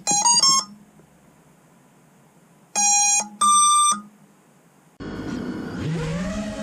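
FPV quadcopter motors sounding the ESC power-up tones: three quick rising beeps, then after a pause a low beep followed by a higher one, the sign that the ESCs have powered up and picked up the flight controller's signal. Music comes in about five seconds in.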